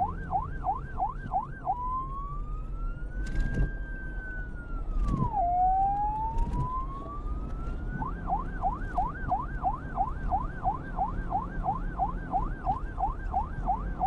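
Electronic police siren played in reverse: a fast yelp of about three sweeps a second, changing about two seconds in to a slow wail that climbs, drops sharply and climbs again, then back to the fast yelp about eight seconds in.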